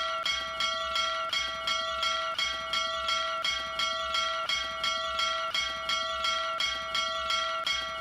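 Small brass bell rung by pulling its rope, struck rapidly and repeatedly, about three strikes a second, so each ring runs into the next.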